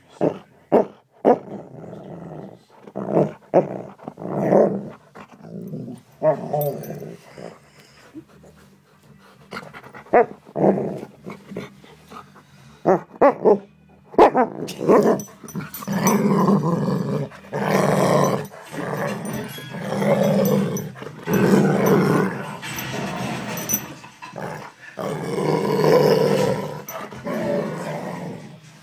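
Alaskan malamute growling: a run of short growls, then longer drawn-out growls from about halfway through.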